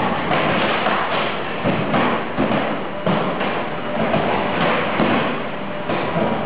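Car-dismantling work: a steady mechanical din with repeated thuds and metal knocks as a car body is broken apart.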